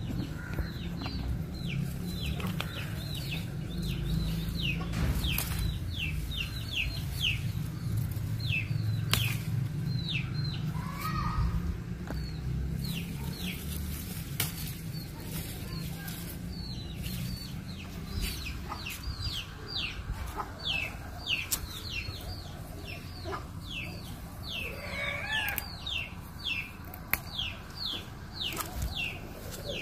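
Chicks peeping over and over, a stream of short falling chirps several a second. Under them runs a low rumble of handling and rustling among the plants, heaviest in the first half, with a few sharp clicks.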